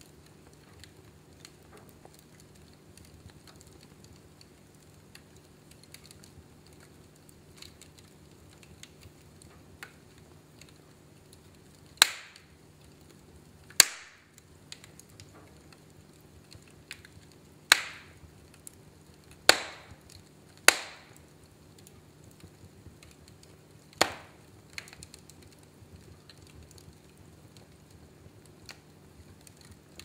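Logs burning in a fireplace: a low steady hiss with faint small crackles throughout, broken by six sharp, loud pops of the burning wood in the middle stretch, spread over about twelve seconds.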